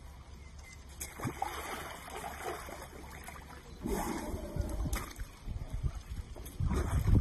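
Wet mud and muddy water sloshing and splashing as an Asian elephant wallows on its side in a mud pool, with a louder low rushing noise coming in near the end.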